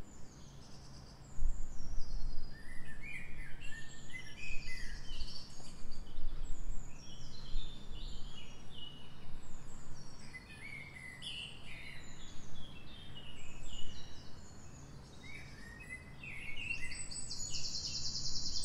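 Birds chirping in the background: many short, overlapping sliding calls and a buzzy trill near the end, over a steady low hum.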